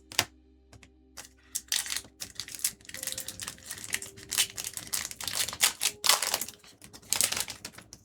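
Trading cards and a foil booster pack being handled: irregular rustling, crinkling and sharp clicks of cards sliding and snapping against each other.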